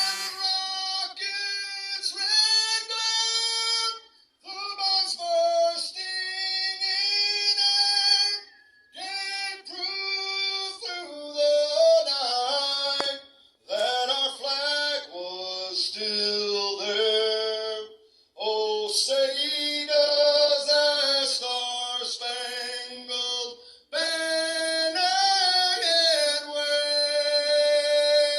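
A woman singing solo and unaccompanied, in long held phrases with short pauses between them.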